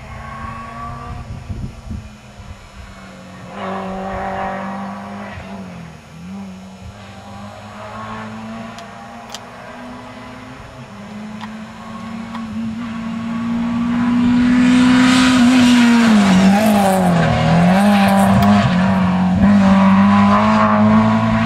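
Rally car engine driven hard on a special stage, its note dipping briefly at gear changes or lifts. It grows much louder from about halfway as the car comes close.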